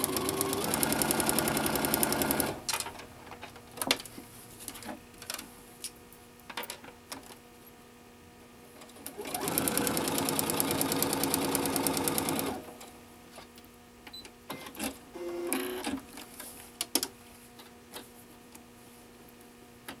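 Electric sewing machine stitching in two runs of about two and a half and three seconds, the needle going at a fast, even rate, with light clicks of fabric and paper being handled between them. It is sewing along the dotted line of a paper triangle guide pinned over two fabric strips.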